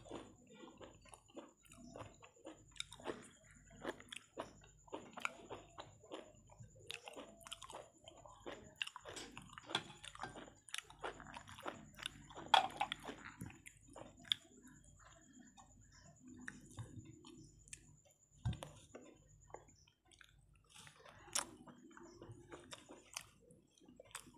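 Close chewing of a woman eating rice by hand, heard as many short, irregular mouth clicks.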